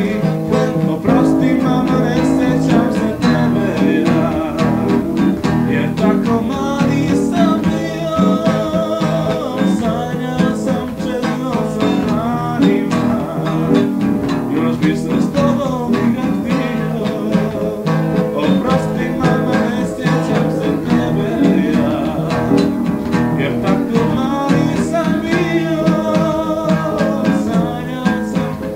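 Home cassette recording of a song: a voice singing over acoustic guitar and an out-of-tune upright piano, captured on a cheap cassette recorder.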